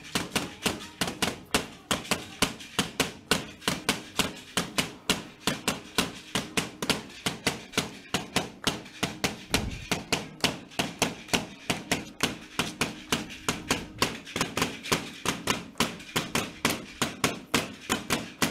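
Percussion for a devil dance: an even rhythm of sharp clicking strikes, about four a second, over a steady held tone.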